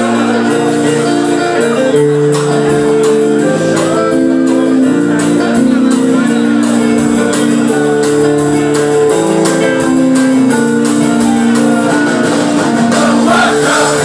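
Live rock band playing: drums with a steady cymbal beat, electric bass, strummed acoustic guitar and held keyboard chords.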